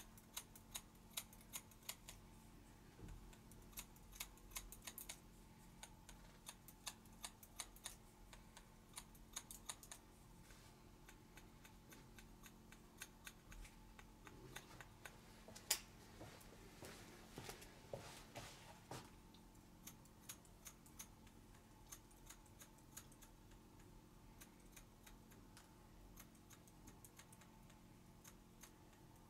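Barber's scissors snipping hair in quick, irregular clicks, with a few seconds of softer scraping in the middle.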